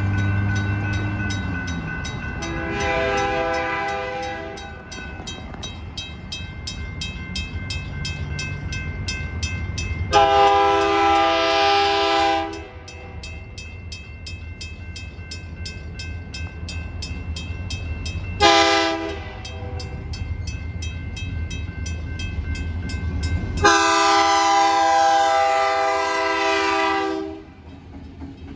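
Diesel locomotive horn, a multi-tone chime, sounding the grade-crossing signal: long, long, short, long. Railroad-crossing signal bells ring steadily throughout, over the low rumble of the approaching locomotives.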